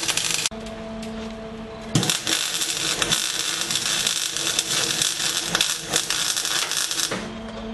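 Aluminium MIG welding with a spool gun: the arc crackles and hisses in a short burst at the start, stops for about a second and a half, then burns steadily for about five seconds. A steady hum is heard whenever the arc is off.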